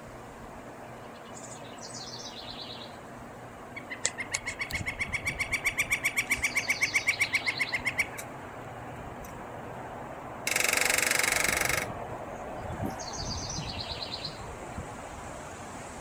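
A woodpecker on a metal chimney cap: first an even series of sharp, ringing notes, about six a second, for about four seconds, then, about ten seconds in, a loud rapid burst of drumming lasting just over a second. Small birds chirp briefly near the start and near the end.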